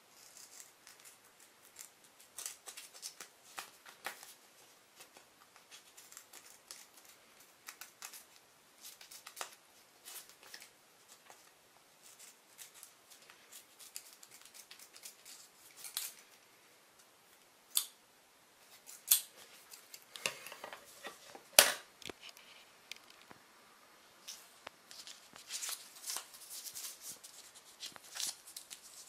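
Metal scissors snipping through an adhesive film patch and its paper backing: many short irregular snips, with a few louder snaps about two thirds of the way through.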